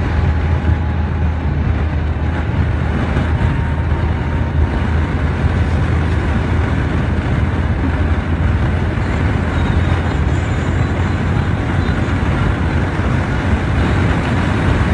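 A car driving along at a steady speed, with a constant low engine and tyre drone and road noise.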